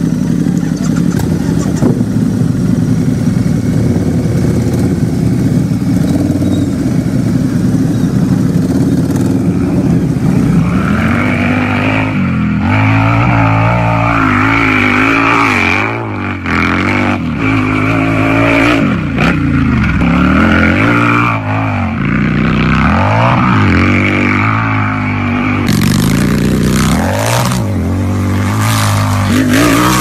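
Harley-Davidson motorcycle V-twin engine idling steadily, then from about ten seconds in revved again and again, the pitch climbing and dropping with each blip of the throttle. Near the end a quick run of sharp cracks sounds over the revving.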